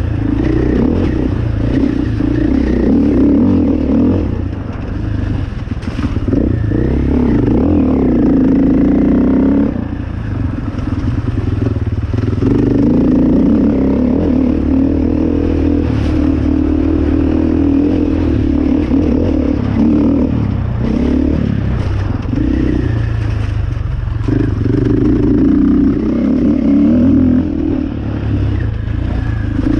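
Enduro motorcycle engine running under load on a rough dirt trail, the throttle opened and closed again and again as the revs rise and fall.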